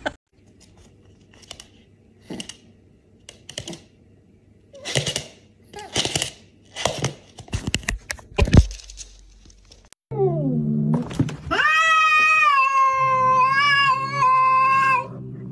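A cat's long, wavering yowl lasting about four seconds, coming in the last third, after a run of short, sharp knocks and clicks.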